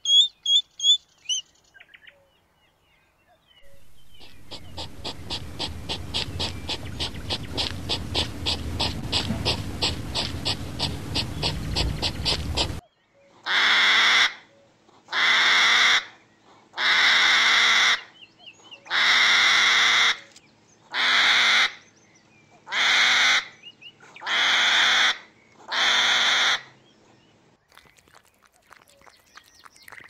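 Hedgehog sounds: a few short high chirps, then a fast, even run of pulses lasting about nine seconds, then eight hissing huffs of about a second each, spaced about two seconds apart.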